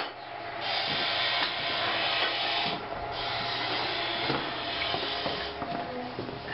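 Woodworking in a carpentry workshop: a tool working wood with a steady rasping noise that breaks off briefly near the start and again about three seconds in, then dies away after about five and a half seconds, with a few small knocks.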